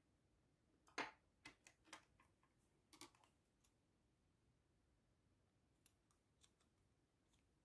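Faint, scattered clicks and light rustles of small scissors being handled and snipping cotton yarn ends. A cluster comes between about one and three and a half seconds in, and a few lighter clicks come near the end.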